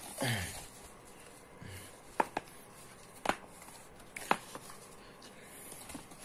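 Baseball caps being handled and moved about on a tiled floor: quiet rustling with a few sharp clicks about two, three and four seconds in.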